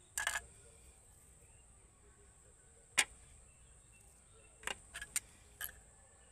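Kitchen knife clicking and scraping against a stone slab as a sheet of rolled dough is trimmed: a short scrape just after the start, one sharp click about three seconds in, and a quick run of four clicks near the end.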